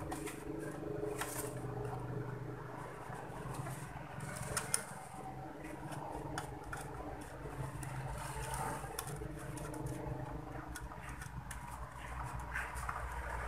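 Small scattered clicks and light knocks from hands handling the amplifier's front control panel and its knobs, over a faint steady low hum.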